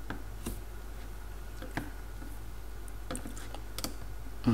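Several sharp computer mouse clicks, spaced irregularly, over a steady low hum.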